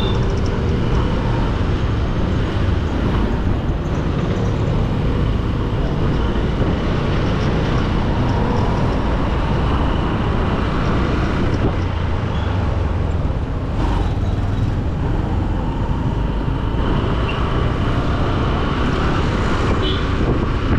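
Steady road traffic noise, a constant low vehicle rumble.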